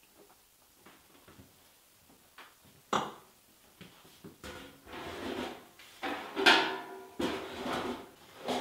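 A sharp knock about three seconds in, then a run of louder, irregular knocks and clatter.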